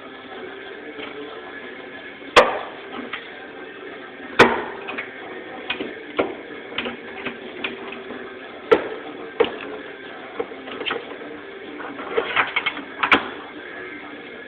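Irregular knocks and clicks of tools and clamps being handled and released: four sharp, loud ones a few seconds apart, with lighter clicks between and a quick run of them near the end.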